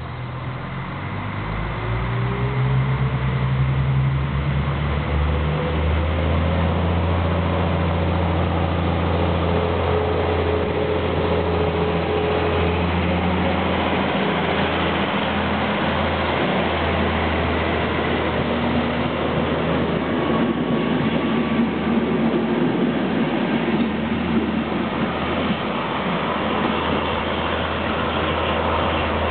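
ČD class 843 diesel railcar accelerating away from a standstill at the head of its train: the engine note climbs over the first few seconds, then holds steady and loud as the train runs past.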